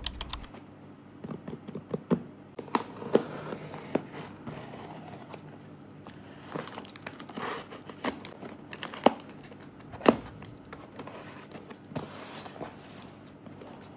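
Cardboard parcel sealed with plastic packing tape being handled and slit open with a box cutter: irregular taps and knocks on the cardboard, with crackling of the tape as the blade cuts it and it is lifted. A few of the knocks are sharper than the rest.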